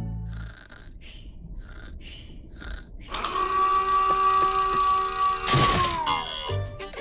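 Cartoon alarm clock sound effects: soft ticking about twice a second, then a loud ringing alarm starting about three seconds in. Near the end a smashing blow hits the clock, and the ring sags down in pitch as it dies, followed by a couple of thuds.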